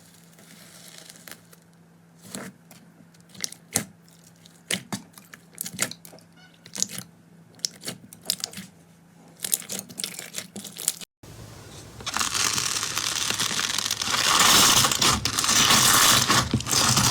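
Slime being squeezed and pressed by hand, making scattered sharp clicks and pops. After a sudden cut about eleven seconds in, it turns into a dense, louder crackling and crunching.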